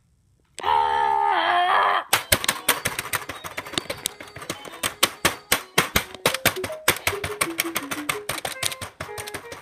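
A loud wavering pitched sound for about a second and a half. Then the plastic keys of a small electronic keyboard clatter rapidly as a hand slaps and sweeps across them, with short faint notes sounding among the clicks.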